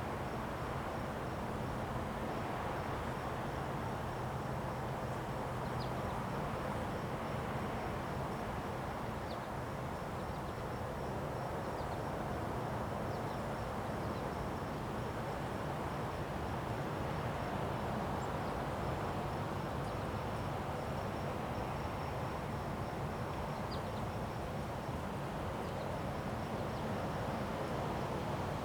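Wind blowing, swelling and easing slowly, with crickets trilling steadily in the background.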